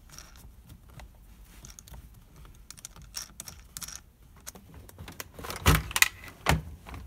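Plastic center-console trim of a Mazda Miata being worked loose and pulled up around the shifter: light clicking and rustling handling, then a few louder plastic knocks near the end as the console comes free.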